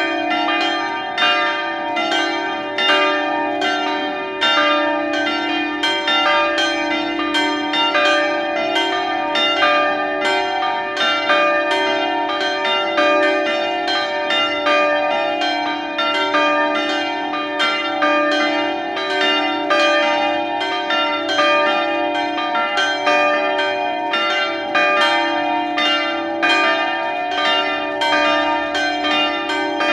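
Grensáskirkja's church bells ringing steadily, several bells striking in quick succession at about two strikes a second, their tones ringing on between strikes.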